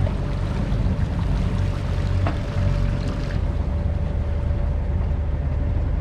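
Sailboat's engine running steadily as the boat motors along: an even low hum with a thin steady tone above it, and one light tap about two seconds in.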